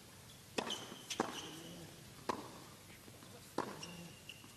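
Tennis ball being served and rallied on a hard court: sharp pops of racket strings on the ball every second or so, four in all, with brief high shoe squeaks between them.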